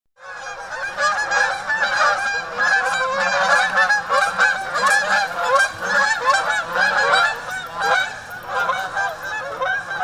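A large flock of geese honking, with many calls overlapping continuously.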